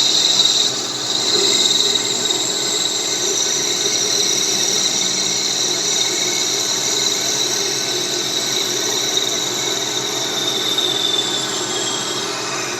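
CNC lathe turning a workpiece: a steady cutting noise with a high whine, dipping briefly about a second in and easing off near the end.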